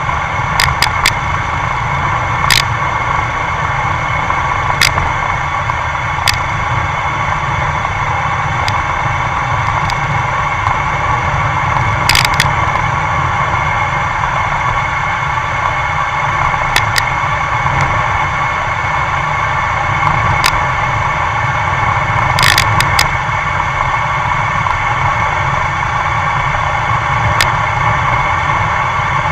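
Steady wind and road rumble picked up by a camera riding on a road bicycle at speed, with a handful of short sharp clicks and rattles scattered through it.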